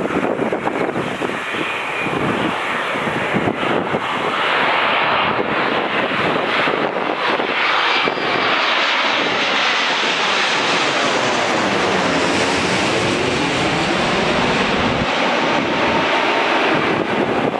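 Boeing 787-9 airliner on final approach, landing gear down, passing low directly overhead. Its Rolls-Royce Trent 1000 turbofans' engine noise builds over the first few seconds, then holds loud with a sweeping, phasing quality as it goes over.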